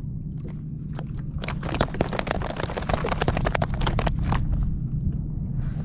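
A fluke being handled and unhooked at a kayak's side: a quick run of small slaps and taps from about a second and a half in until about four and a half seconds, over a steady low rumble.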